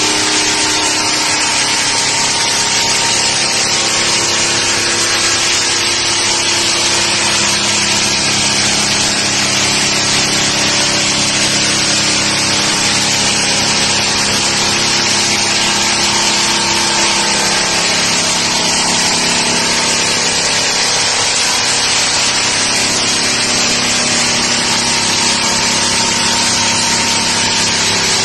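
Electric drum floor sander with a 300 mm sanding drum running steadily while sanding down a wooden floor: a steady motor tone over a constant hiss of abrasive on wood.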